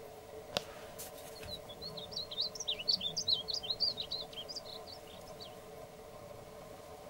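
Male painted bunting singing one rapid, warbling song of quick high notes, starting about a second in and lasting about four seconds, over a steady low background hum. A single sharp click comes just before the song.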